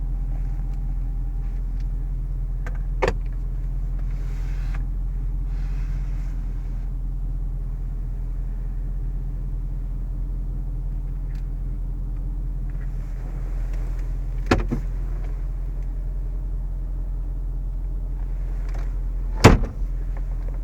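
Range Rover Sport's 5.0-litre supercharged V8 idling with a steady low hum, with three sharp clicks or knocks, the loudest near the end.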